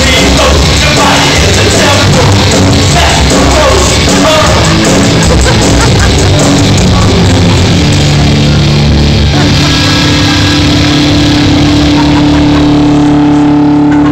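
Rock band playing live on electric guitar, bass and drums, very loud and overloaded in an audience recording. About eight seconds in the band settles into a long held chord that breaks off near the end.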